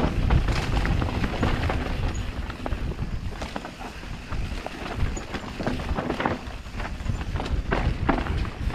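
Mountain bike riding fast down a rough trail: a steady noisy rumble of tyres over dirt and stones, broken by many sharp clicks and knocks as the bike rattles over roots and rocks.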